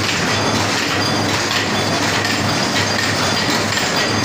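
High-speed paper cup making machine running: a steady, dense mechanical clatter with an even repeating rhythm over a low hum.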